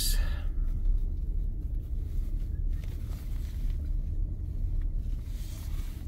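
Pickup truck rolling along a dirt driveway, heard from inside the cab: a steady low rumble of engine and tyres.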